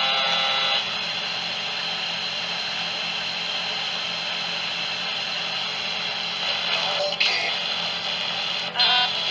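Steady hiss of radio static with a low hum and a thin high whine running through it, and brief faint snatches of a voice near the end.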